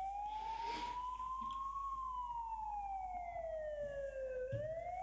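Siren wailing slowly. The pitch rises for about two seconds, falls for about two and a half seconds, and starts rising again near the end.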